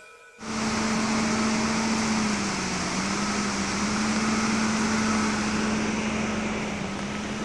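A steady engine hum over a constant rushing noise, cutting in abruptly about half a second in.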